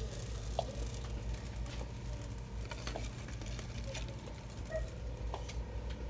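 Quiet shop ambience: a steady low hum with a faint steady high tone, and a few light clicks and rustles.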